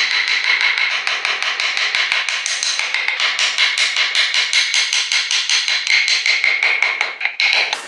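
Fast, even hammer taps, about six a second, with a steady ringing tone under them, in woodworking.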